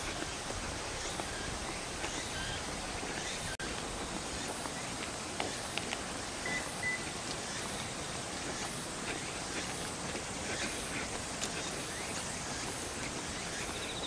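Steady outdoor background hiss with faint, high pulses about once a second and a few brief faint chirps.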